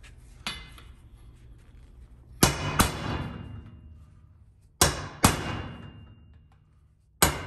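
Hammer blows on a metal drift driving a U-joint bearing cap down into the driveshaft yoke, so that it sits flush. The blows come in quick pairs about every two and a half seconds, each with a metallic ring that dies away, after a lighter tap about half a second in.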